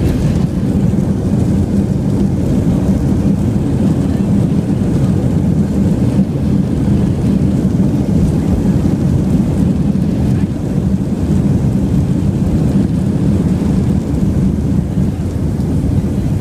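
Airbus A320 cabin noise during landing: a loud, steady low rumble of engine and airflow noise heard from inside the cabin.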